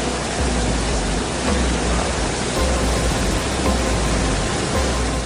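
Steady loud roar of floodwater pouring over a desert cliff as a waterfall, an even rushing noise with no let-up. Faint background music lies under it.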